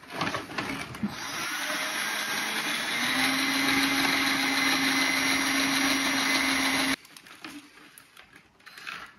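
Cordless drill driving a step bit through the metal rail of a shade to open a cable hole: it runs steadily for about seven seconds, a steady hum settles in about three seconds in, and then it stops abruptly. A few light handling noises follow.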